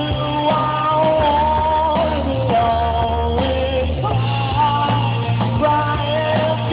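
Rock band playing an instrumental break: a lead melody of held, sliding notes over steady bass and drums.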